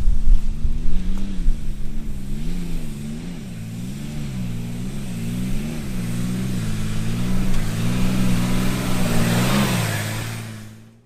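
Four-wheel drive's engine running, its revs rising and falling again and again, with wind rumbling on the microphone in the first moments; the sound fades out near the end.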